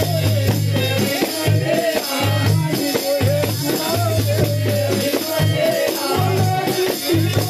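Live Pahari folk dance music: a hand-held frame drum with jingles beaten in a steady, quick rhythm under a wavering melody line.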